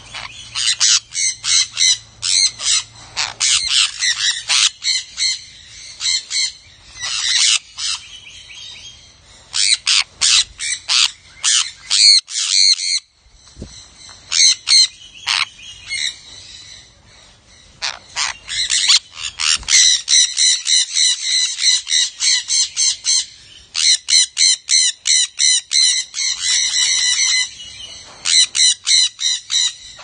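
A flock of sun conures calling: rapid runs of short, high-pitched calls that come thick and fast in bursts, with a few brief lulls.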